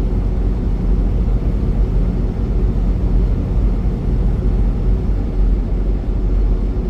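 Semi-truck driving on the highway: a steady, even rumble of engine and road noise.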